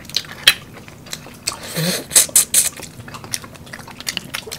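Close-up eating sounds: shrimp shells cracked and peeled by hand with chewing, as scattered sharp clicks and wet smacks, with a louder noisy stretch about two seconds in.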